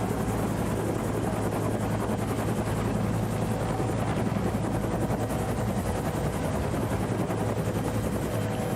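Helicopter running with a steady, loud drone of rotor and engine noise.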